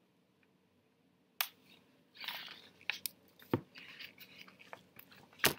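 Paper picture book being handled: quiet at first, then a short page rustle about two seconds in and a scattering of sharp clicks and taps, the loudest near the end.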